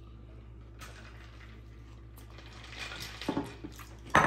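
Eating sounds from a fried fish sandwich: quiet chewing with a short patch of crackly crunching about three seconds in, over a steady low hum. Near the end, tableware knocks sharply on the table, loudly and once.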